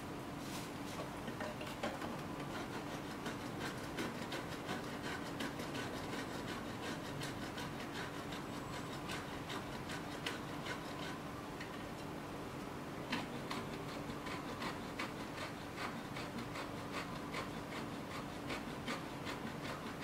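Thin metal multitool blade scraping along a wooden stick in many quick, repeated strokes, shaving the wood down. The strokes come thicker and stronger in the second half.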